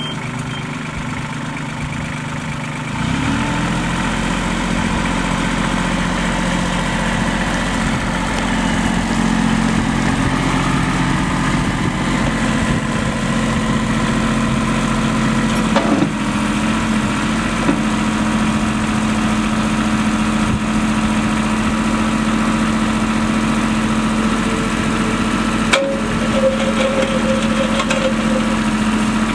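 New Holland TC30 compact tractor's three-cylinder diesel engine running. About three seconds in the revs step up, then hold steady, with a further shift in pitch about halfway through and a single sharp click near the end.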